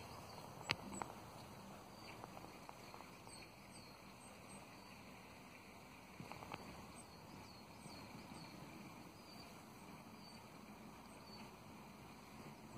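Quiet outdoor ambience with faint high chirps repeating about once a second, and a sharp click about a second in.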